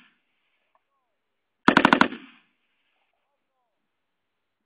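Vektor SS-77 7.62×51mm general-purpose machine gun firing one short burst of about six rounds, about two seconds in, followed by a brief echo.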